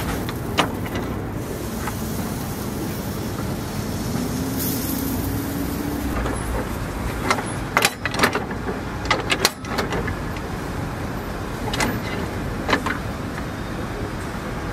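Steady street-traffic noise with a faint rising engine note in the first half, under sharp metallic clicks and clanks from the egg-bread stall's metal mold griddle and tools, bunched about halfway through.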